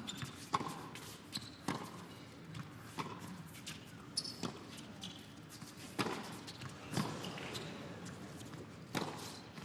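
Tennis ball hit back and forth by racquets in a rally, a sharp pop about every second or so, with the ball's bounces on the hard court between strokes over a low crowd murmur.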